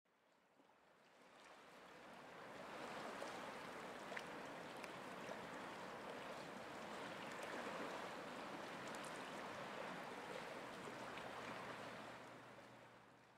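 Faint running-water ambience, like a stream or lapping pond water, fading in after about a second and out near the end, with a few small ticks in it.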